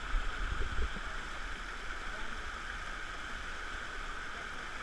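Steady rush of flowing stream water, with a couple of low thumps on the microphone in the first second.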